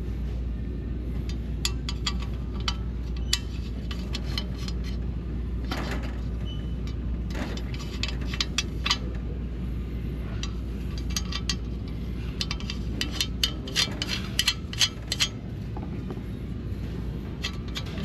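Scattered light metallic clinks and taps over a steady low rumble; the deepest part of the rumble drops away about two-thirds of the way through, and the clinks come thicker near the end.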